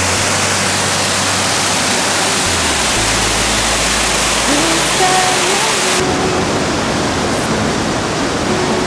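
Steady loud rush of a waterfall, with music playing over it. About six seconds in, the water's high hiss drops away suddenly.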